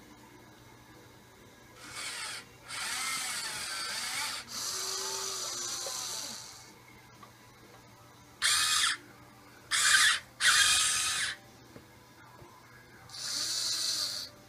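Huina 580 RC excavator's electric motors and gearboxes whirring in stop-start bursts as the boom, arm, swing and tracks are worked. The sharpest, loudest bursts come in the middle, short spurts a second or so apart.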